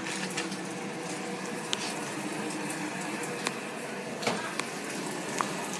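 Food frying in a pan, a steady sizzle with a low hum underneath. A few sharp clicks and knocks cut through it.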